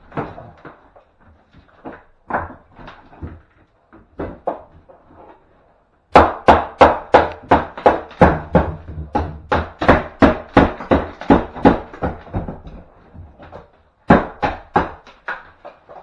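Hand hammer striking hard and fast, about four blows a second, for several seconds from about six seconds in, with a short second burst near the end. Scattered knocks and clatter come before it, as old wall finish is knocked off during a strip-out.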